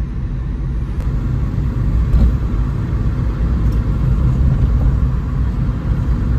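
Hyundai Venue being driven: a steady low rumble of engine and road noise.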